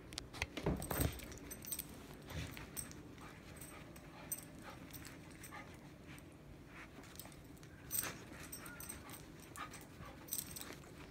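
A dog moving about restlessly, his metal collar tag jingling in scattered small clicks, with a soft thump about a second in.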